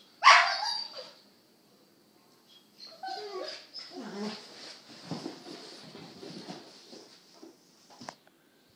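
Corgis play-fighting: one loud, sharp bark about a quarter second in, then several seconds of softer yips and scuffling.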